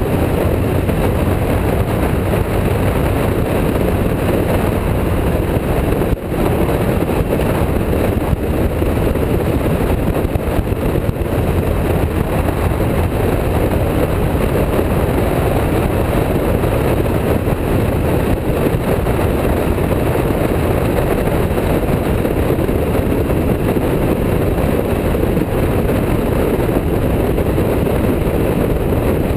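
Motorcycle under way, heard from a camera mounted on the moving bike: a loud, steady rumble of engine and wind.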